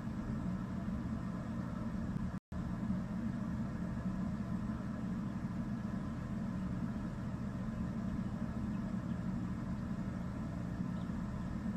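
Steady low hum and rumble of a ceiling fan running overhead, picked up through a phone's microphone. The sound cuts out completely for a split second about two and a half seconds in.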